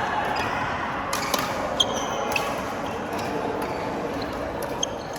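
Badminton play: a handful of sharp racket-on-shuttlecock hits, unevenly spaced, some with a short high ping, over the steady background noise of an indoor hall.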